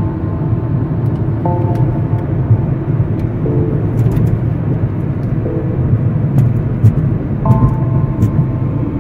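Steady low rumble of road and engine noise inside a moving car's cabin. Music plays over it, with held notes that change about every two seconds.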